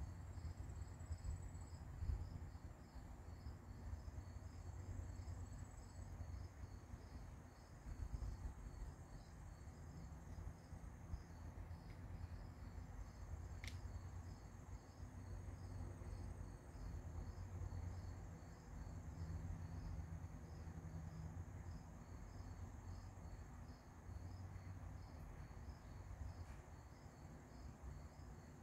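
Insects chirping, crickets by the sound: a faint, even pulsing chirp two or three times a second with a thin, steady high trill above it, over a low rumble. A single sharp click about halfway through.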